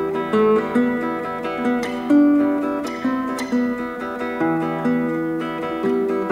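Background music: an acoustic guitar picking a melody, one note after another.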